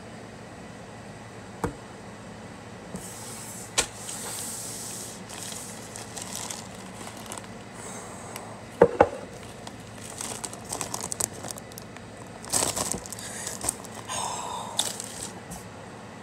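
Foil chip bag crinkling and rustling as it is handled, with scattered sharp clicks; the loudest is a close pair of clicks about nine seconds in.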